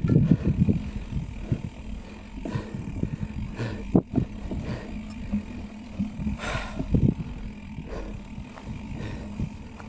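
Mountain bike rolling along a rough dirt-and-grass trail: steady rumble of the tyres and wind on the microphone, with rattles from the bike and a couple of sharp knocks over bumps. Loudest in the first second, then steadier.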